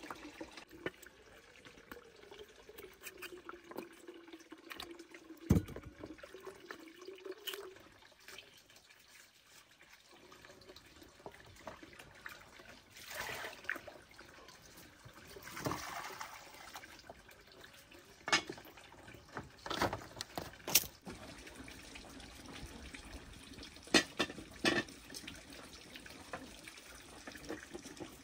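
Water trickling and splashing, with a few louder swells and several sharp knocks scattered through. A wavering hum runs under the first few seconds and then stops.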